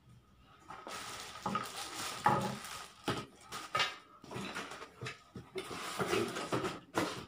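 Unpacking by hand: plastic bags, cardboard packaging and hard plastic parts rustling and clattering in irregular bursts, with a sharp knock about two seconds in.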